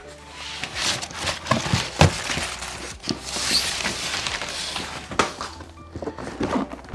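Packaging being handled and rummaged through: crinkling, rustling paper and plastic with a string of sharp clicks and knocks, one of the loudest about two seconds in.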